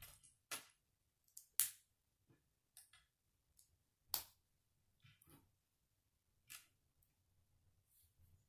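K'nex plastic rods being snapped into plastic connectors by hand: sharp plastic clicks at irregular intervals, the loudest about one and a half and four seconds in, with fainter ticks from the pieces being handled in between.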